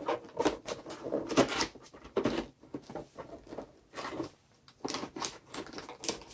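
Paper instruction sheets being handled and shuffled in a hard plastic tool case: irregular rustling and crinkling with light taps and knocks on the plastic.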